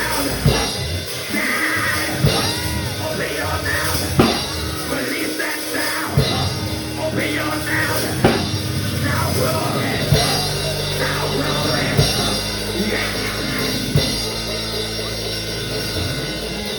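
Live church band playing a praise break: drum kit driving hard with a loud accent hit about every two seconds over held low bass notes. Voices call out above the music.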